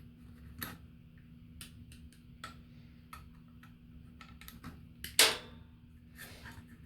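Scattered small clicks and taps of small parts and tools being handled at a workbench, with one sharper click about five seconds in, over a faint steady low hum.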